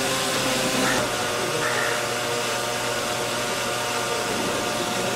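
Small electric motor spinning a plastic propeller fan at full speed: a steady whirring with a held motor tone over rushing air.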